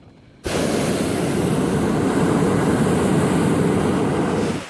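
Hot air balloon's propane burner firing in one steady blast of about four seconds, starting suddenly about half a second in and cutting off just before the end.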